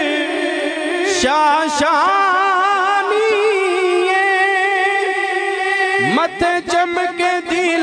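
Solo male voice singing a naat unaccompanied, holding long, wavering ornamented notes, with a short break and a new phrase about six seconds in.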